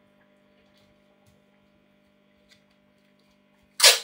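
Plastic film being handled: one short, loud scratchy rustle near the end, over a faint steady hum and a few small ticks.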